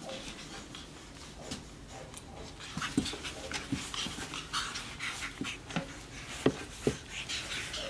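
Two capuchin monkeys play-wrestling: scuffling and rustling of fur and diapers, with quick short breaths and a few soft thumps, two of them close together near the end.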